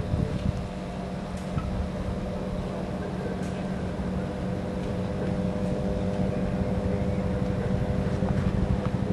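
A steady engine hum with several held tones over an uneven low rumble, growing slowly louder.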